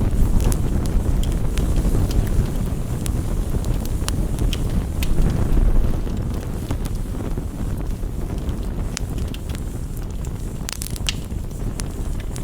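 Rain and campfire ambience: a steady low rushing noise with scattered sharp ticks and pops from raindrops tapping a window pane and the fire crackling.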